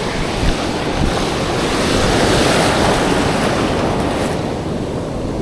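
Surf breaking on a beach, with wind buffeting the microphone; the wash swells to its loudest a couple of seconds in and then eases off.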